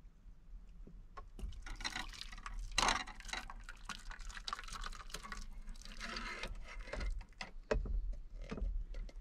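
Hot soup being poured out of a cooking pot into a bowl, a splashing pour that runs for several seconds. A few light knocks of pot or utensil follow near the end.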